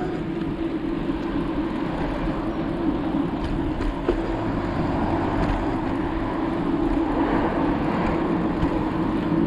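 Steady noise of a bicycle ride: a constant rush with a steady low hum and a few faint clicks.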